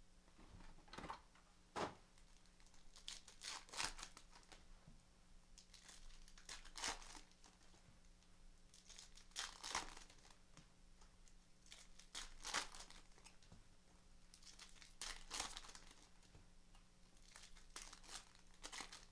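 Crinkly plastic wrapping of a box of baseball card packs being torn and crumpled in short, irregular crackles, over a faint steady hum.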